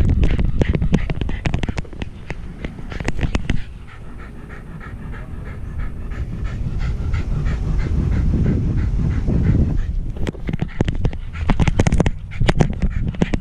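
A wire-haired fox terrier panting right at the camera on its harness, in a quick, even rhythm that stands out most in the quieter middle stretch. For the first few seconds and again near the end it is mixed with dense knocking and rubbing from the loose harness mount as the dog moves.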